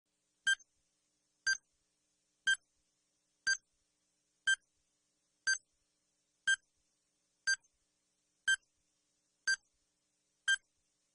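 Eleven short, sharp ticks, one every second, each a bright clipped tone, with silence in between.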